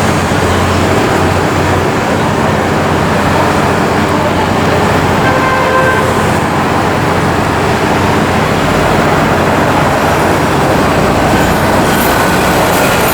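Steady city street traffic noise, with a faint car horn about five seconds in.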